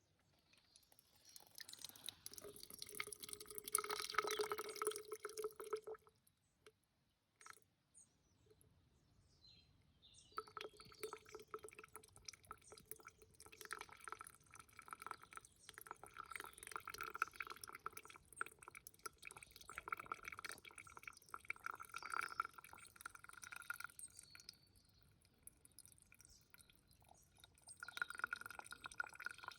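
A thin trickle of water dripping and splashing, faint, with a faint ringing tone; it almost stops for a few seconds about a quarter of the way in, then runs on.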